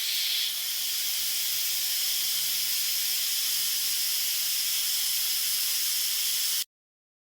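Steady hiss of a pressurised spray, cutting off abruptly near the end.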